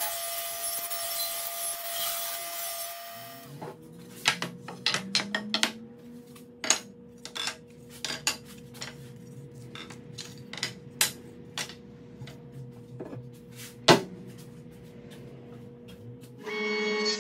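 SawStop table saw ripping a walnut strip, a dense steady cutting noise that stops abruptly about three seconds in. Thin wooden strips are then clacked and knocked down onto the saw's table and plywood pieces, a string of sharp separate taps with one louder knock near the end, over a low steady hum. Music starts just before the end.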